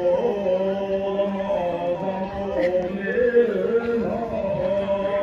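A man singing a slow traditional Tibetan song into a microphone, holding long, drawn-out notes that waver and bend in pitch.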